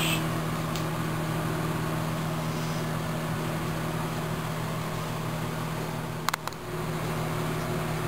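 Electrolux microwave oven running with a steady electrical hum while it heats a crushed aluminium can. A little past six seconds in there are a couple of sharp clicks and the hum briefly dips before carrying on.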